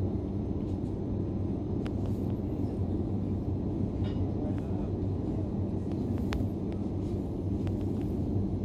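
Running noise inside a DB Class 425 electric multiple unit: a steady low rumble from the wheels and drive, with a few short, sharp clicks.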